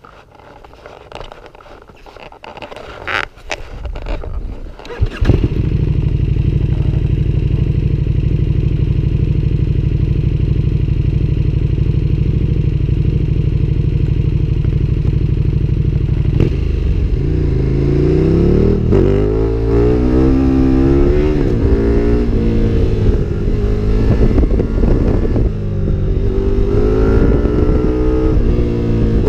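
KTM 1290 Super Duke R's V-twin engine through an Akrapovic exhaust starting up about five seconds in and then idling steadily. From about halfway through, its pitch rises and falls repeatedly as the throttle is worked.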